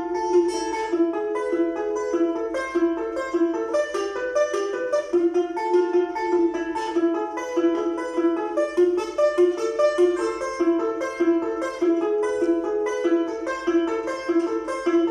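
Balalaika playing a quick melody of plucked and strummed notes over a low note struck again and again.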